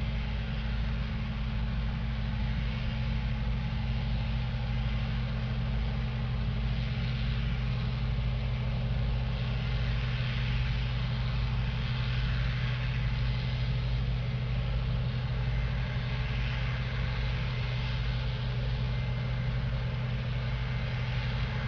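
Combine harvester running steadily while harvesting soybeans: a constant low engine drone with a dense mechanical rush over it that holds even throughout.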